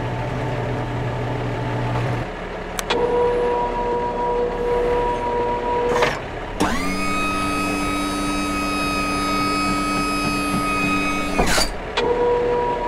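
LEGO Technic 42009 Mobile Crane's electric motor whining steadily through its gearing as it drives the model's functions. A click about three seconds in starts a steady whine. About six and a half seconds in it rises quickly to a different pitch, which it holds for about five seconds before stopping, and then the first whine starts again.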